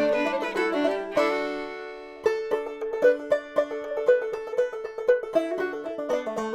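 Background music: a fast-picked banjo tune in bluegrass style, its notes plucked several times a second, with a short break about two seconds in.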